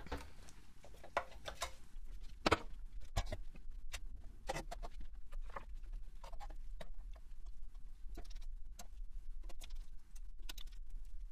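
Irregular small clicks and taps as gloved hands handle fiber and parts inside an open metal laser chassis, the sharpest click about two and a half seconds in, over a steady low hum.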